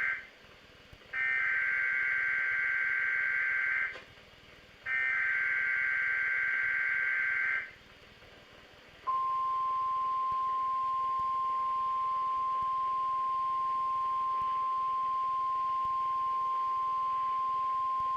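Weather Radio Canada SAME header: a burst of two-tone digital data ends, then two more bursts of about 2.7 s each follow a second apart. About a second later a steady 1050 Hz warning alert tone starts and holds. The headers code an administrative message.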